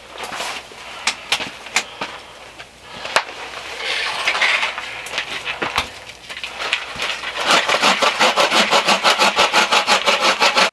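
Wood being cut with a hand saw: a few sharp knocks and a rasping stroke, then quick, even sawing strokes, about eight a second, over the last few seconds.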